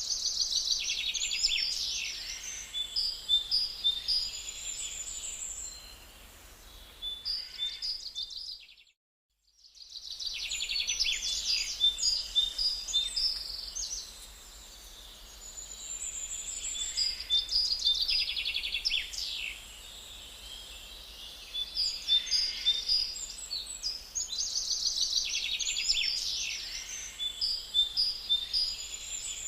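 Forest songbirds singing in repeated bursts of quick, high chirping phrases over a faint steady background hiss. The sound cuts out completely for about a second roughly nine seconds in.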